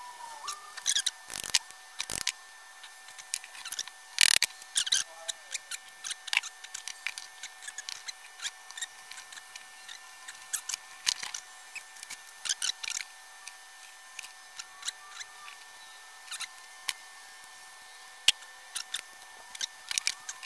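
Irregular clicks, taps and light rattling of small metal parts and tools handled on a workbench while a shop vacuum's electric motor is put back together, with a few sharper knocks about one and a half, two and four seconds in.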